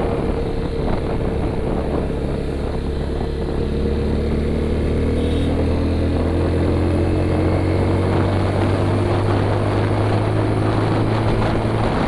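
Motorcycle engine running at a steady cruise, a continuous low hum whose pitch drifts slowly from about four seconds in.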